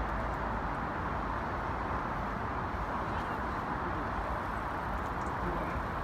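Steady urban background noise, the constant wash of distant city traffic, with no distinct events.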